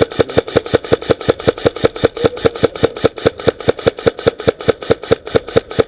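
Airsoft rifle firing one long continuous burst, very even shots at about seven a second, stopping just before the end.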